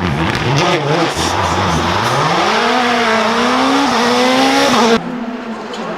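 Rally car engine at high revs, its pitch dipping and then climbing steadily for a few seconds over a loud rush of tyre and gravel noise. It cuts off abruptly about five seconds in, giving way to a quieter engine.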